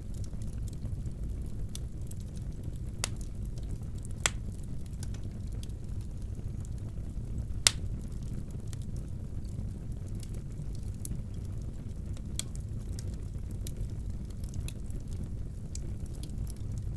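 Wood fire burning in a fireplace: a steady low rumble with scattered sharp crackles and pops, two of them louder, at about 4 and 7.5 seconds in.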